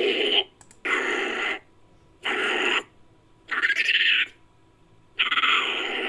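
Home-made Japanese macaque sound effect: a string of short, hoarse animal-like calls without a clear pitch, each about half a second long, coming roughly once every 1.3 seconds with quiet gaps between.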